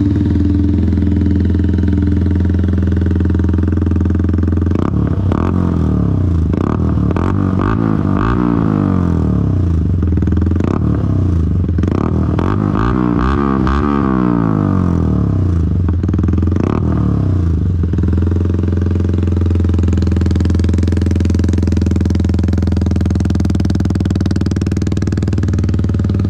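A Yamaha MT-125's single-cylinder four-stroke engine running through a Blackwidow aftermarket exhaust. It idles steadily, is revved up and down several times from about five seconds in, then settles back to a steady idle for the last several seconds.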